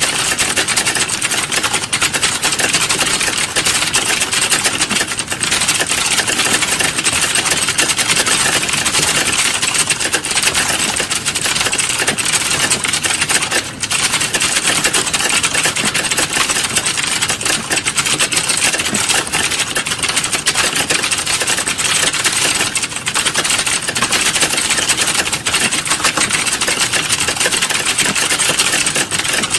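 Rapid, continuous typing on a computer keyboard, a dense unbroken patter of key clicks, with a brief lull about 14 seconds in.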